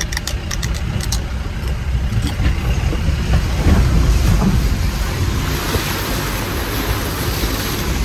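A motor vehicle running, with a heavy low rumble that swells for a while midway and a few sharp clicks near the start.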